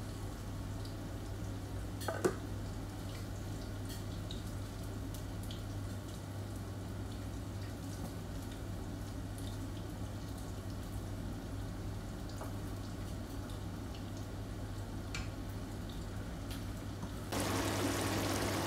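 Pork in a sauce simmering in a wok: faint bubbling over a steady low hum, with one knock about two seconds in. Near the end the bubbling turns louder.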